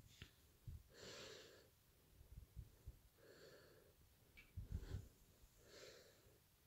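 Near silence with faint, slow breathing close to the microphone, about one breath every two and a half seconds, and a few soft low bumps from hands handling the fabric.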